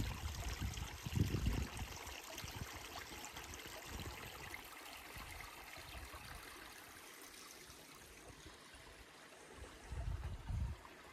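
Small mountain stream trickling over rocks, faint and steady. Low gusts of wind hit the microphone about a second in and again near the end.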